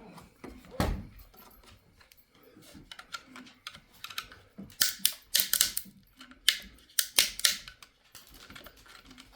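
Plastic support material being snapped and pried off a 3D print by hand: a string of sharp cracks and clicks, one just under a second in, then clusters of them in the second half.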